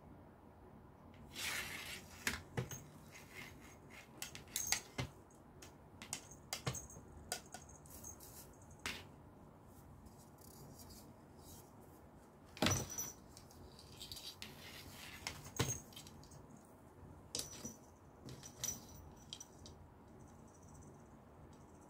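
A cat playing with a feather wand toy on a corrugated cardboard scratcher: scattered light clicks, scratches and rustles of claws on cardboard and feathers brushing, the loudest a little past halfway.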